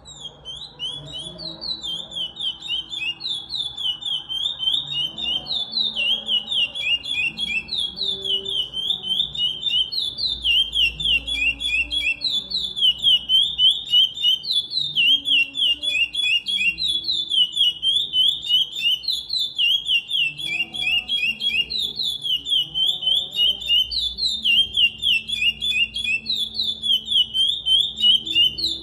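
Chestnut-bellied seed finch (curió) singing the Paracambi song type: a continuous run of fast, sweeping whistled notes, with the same phrase repeated over and over without pause.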